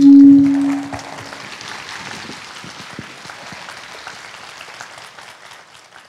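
A final held note of the song's music fades out over the first second or so as an audience breaks into applause. The applause runs steadily, then fades away near the end.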